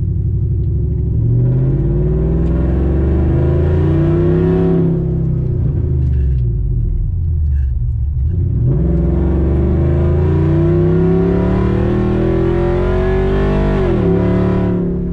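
Pickup truck's engine heard from inside the cab, accelerating with its pitch climbing for a few seconds, then easing off and falling. It climbs again and dips sharply near the end.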